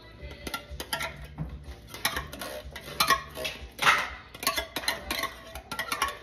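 A spoon clinking and scraping against a pot in irregular knocks while corn kernels are mixed into the maja blanca mixture.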